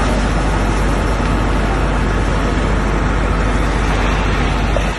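Loud, steady roar with a deep rumble at a large building fire, where flames, fire-engine motors and wind can all add to the noise. It drops off sharply just before the end.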